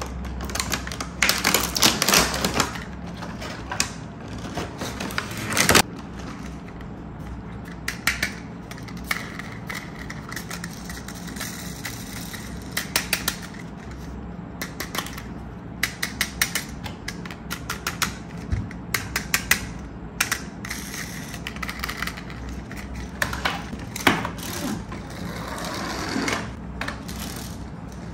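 Hard plastic toy track pieces being handled and fitted: irregular clicks and clatter, denser at the start and again near the end, over a steady low hum.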